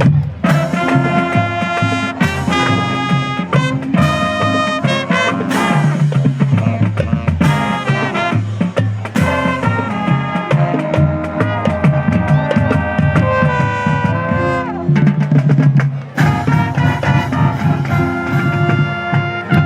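Marching band playing loudly, brass section over drums. About fourteen seconds in, the brass slides down in pitch, then the full band comes back in strongly after a brief dip.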